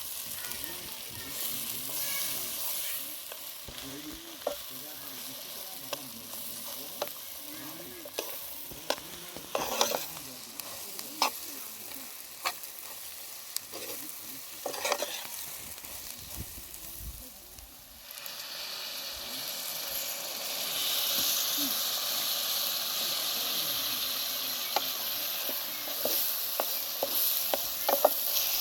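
Food sizzling as it fries in a pan, with a utensil clinking and knocking against the pan many times as the food is stirred. About two-thirds of the way through, the sound changes suddenly to a louder, steadier sizzle.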